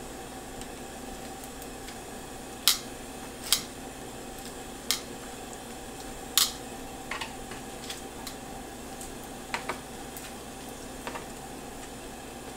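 Metal kitchen tongs clinking and scraping against a metal sheet pan as chicken wings are turned over under the broiler, four sharp clinks in the first half, then lighter taps. A steady low hum runs underneath.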